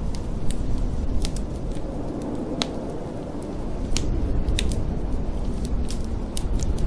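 Wood fire crackling, with irregular sharp pops, over a steady low rumble of snowstorm wind.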